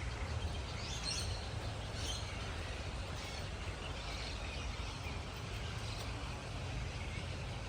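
Steady outdoor background noise with a low rumble and faint scattered bird calls.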